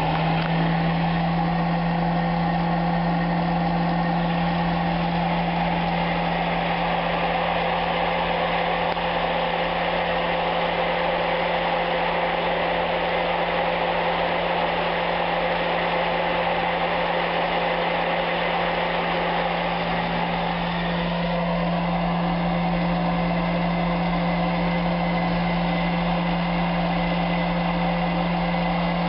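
Toastmaster 6203 hot-air popcorn popper running as a coffee roaster: its fan motor spins up right at the start and then blows steadily, a constant whir with a low hum under a rush of hot air through the bean chamber.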